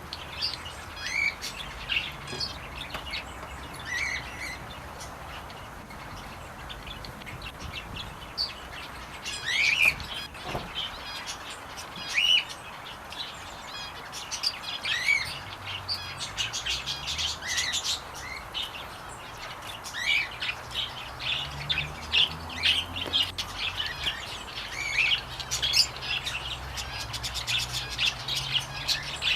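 Small aviary birds chirping: scattered single chirps at first, turning into a busy run of quick chirps from several birds in the last third.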